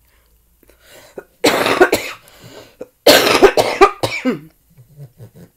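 A woman coughing: two loud coughs about a second and a half apart.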